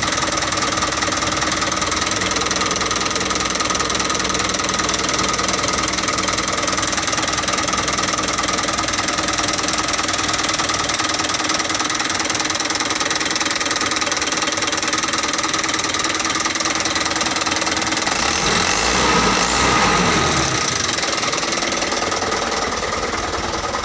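Truck engine running steadily at idle. About nineteen seconds in it swells briefly louder, with a falling pitch as it settles back.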